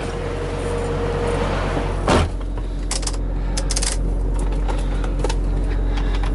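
Semi truck's diesel engine idling with a steady low drone, heard from inside the cab. A hiss fades out over the first two seconds, then a sharp knock about two seconds in and a quick run of clicks a second or two later, as the camera is handled and set down.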